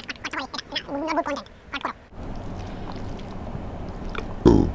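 A man's voice for about two seconds, then a steady, rough, gurgling throat and mouth noise as he eats, ending in a short loud burst near the end.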